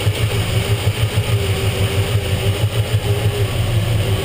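Freshly rebuilt Chevrolet 283 small-block V8 idling with an even pulse, while a ticking hydraulic lifter is being adjusted at its rocker nut.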